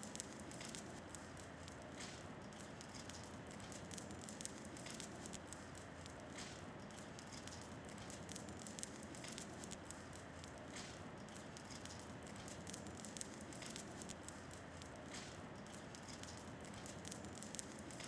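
Wood fire of twigs and branches crackling faintly, with irregular sharp snaps over a low hiss.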